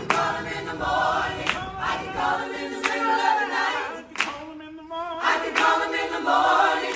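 A group of voices singing together, a choir-style song, with a few sharp clicks along the way.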